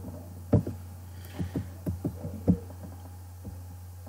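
A computer mouse being handled while the page is scrolled: a handful of short, irregular clicks and soft knocks, over a steady low hum.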